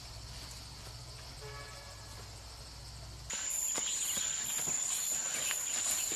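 For about three seconds a low rumble, then, after a sudden change, an insect's steady high-pitched trill, with a few faint footsteps on the path.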